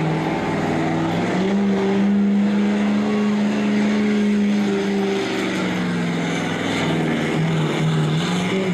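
Street diesel pulling truck's engine running hard at high revs under load. Its pitch steps up about a second and a half in, holds, sags around five seconds, then wavers near the end.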